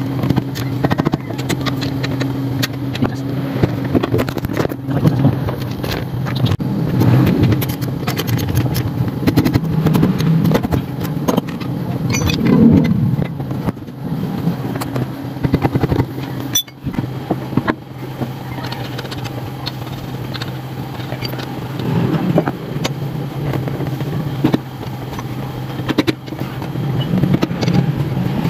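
A vehicle engine running steadily, with frequent light clicks and metal taps from hand tools being worked on a brake caliper bolt.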